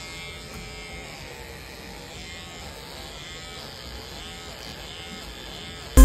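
Cordless electric pet clippers buzzing steadily as they shave a Labrador retriever's coat. Loud music with a heavy beat cuts in suddenly at the very end.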